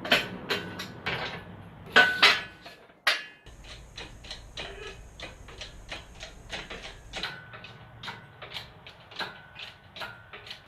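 Metal tools clanking against engine parts, then a long run of even, rapid clicks at about three to four a second.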